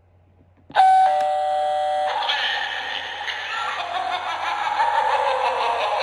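Spooky Jime animated haunted eyeball novelty doorbell sounding: an electronic two-note ding-dong chime, high note then lower note, starting about a second in and held for just over a second. It is followed by a dense, buzzy electronic sound effect that carries on without a break.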